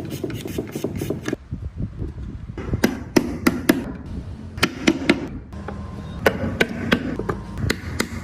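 Hammer striking a chisel into wood: a run of sharp, irregular knocks in several quick clusters with short pauses between them.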